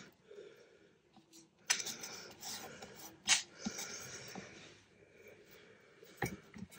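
Fabric scraps being handled, laid on a glued base and pressed flat by hand: soft rustling with a few sharp taps and clicks, the clearest about two and three seconds in.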